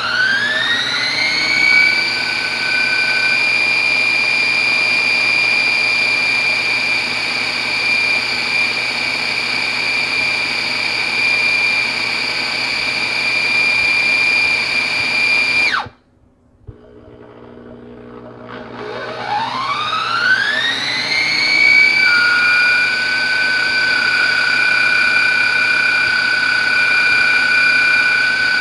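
Blender motor of a BEAR baby food maker pureeing steamed apples in its automatic blending stage. It spins up with a rising whine, runs at a steady high pitch, stops suddenly about 16 seconds in, then spins up again a couple of seconds later and runs steadily.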